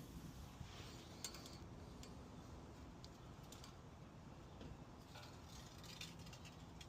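Faint, scattered light metallic clicks and ticks from hand tools and small metal parts, such as a nut, being handled, over a low steady hum.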